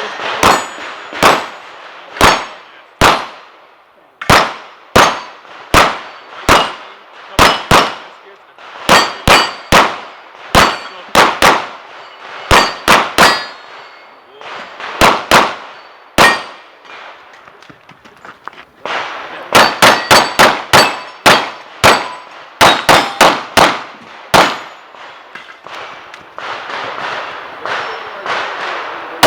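Glock 34 9mm pistol firing rapid pairs and quick strings of shots, with brief pauses between strings, during a timed competition stage. High ringing lingers after many of the shots, as of struck steel targets.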